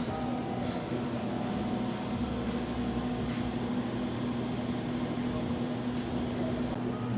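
Steady low mechanical hum over even background noise.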